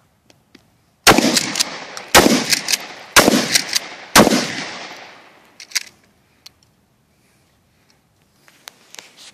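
Shotgun firing four shots of light target loads (birdshot), about one a second, each trailing off in echo. A few faint clicks follow.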